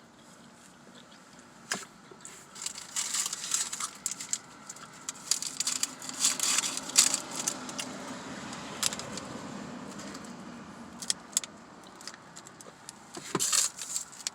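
Paper crinkling and rustling in irregular bursts with scattered sharp clicks, as a fast-food paper bag and wrapper are handled. The crackling is densest in the first half and again near the end.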